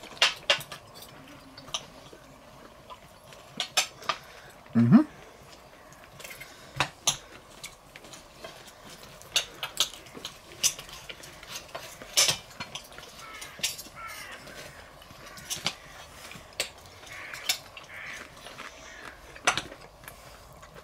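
Metal cutlery clinking and scraping on a plate while eating, heard as scattered sharp clicks. About five seconds in there is one short voiced sound, like a hum.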